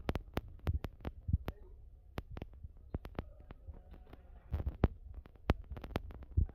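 Irregular thuds and knocks of a basketball bouncing and players' feet on an indoor court, a few a second, over a faint steady hum.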